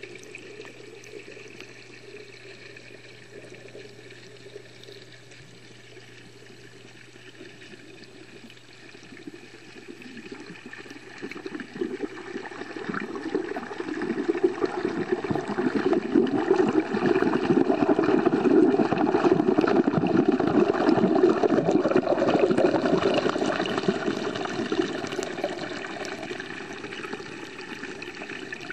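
Pond water rushing and bubbling as heard by an underwater camera, swelling up about a third of the way in and easing off near the end, over a faint steady low hum.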